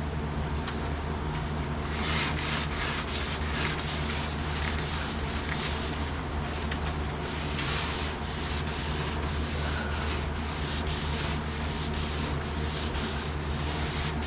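Hand sanding on a truck cab's sheet-metal body: quick back-and-forth strokes, about three a second, starting about two seconds in. Under it runs the steady hum of a shop exhaust fan.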